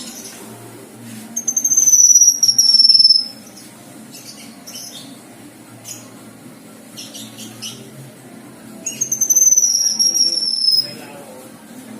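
Cucak kinoi singing: two loud, high, drawn-out whistles, each about two seconds long and sliding slightly down in pitch, one about a second in and one near the end, with softer short chattering notes between them.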